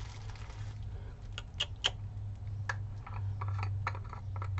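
Scattered light clicks and taps of plastic PanPastel pans being handled and slipped out of bubble wrap, over a steady low hum.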